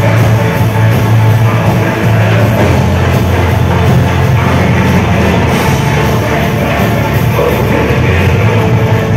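A rock band playing loud through the PA, heard from within the crowd, with a heavy, sustained bass under dense guitars and drums.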